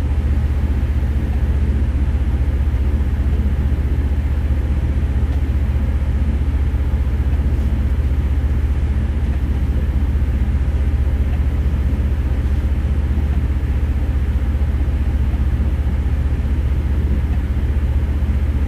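Steady, loud low mechanical hum with a constant pitch and no change in level.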